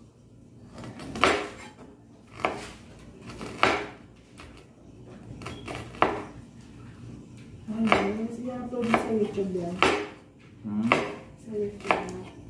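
A large kitchen knife chopping ginger on a cutting board: about ten sharp, irregular knocks of the blade against the board.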